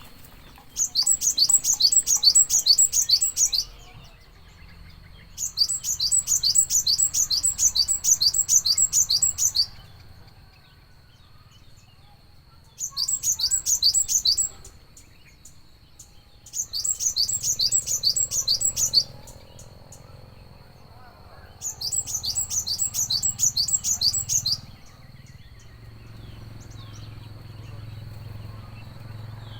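A gelatik calling in five loud bouts of rapid, repeated high notes, each lasting about two to four seconds, with short pauses between. A faint steady high tone runs underneath.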